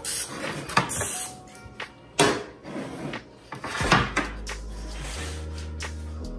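Aerosol cooking-oil spray hissing over a baking tray for about the first second, followed by a few knocks and clatters, then background music with low held notes from about four seconds in.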